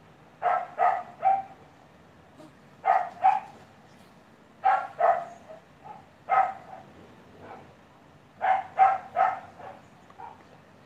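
Old English Bulldog barking in short bouts of two or three barks with pauses between, about a dozen barks in all.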